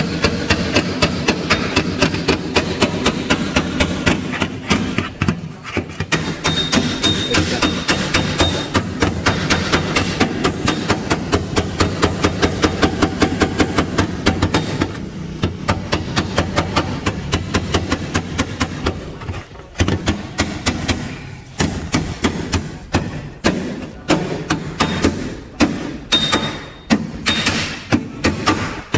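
Hammer tapping on a car's sheet-steel body panel to knock down a hump in a hand dent repair. Quick, even taps for about the first half, then slower, irregular blows.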